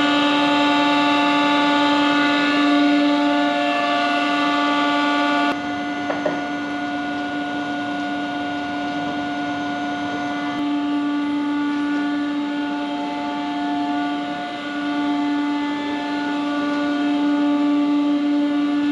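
Steady, pitched whine of a heavy CNC lathe's hydraulic power unit running, its electric pump motors humming. About five seconds in it drops a little in level and loses some of its top, then carries on unchanged.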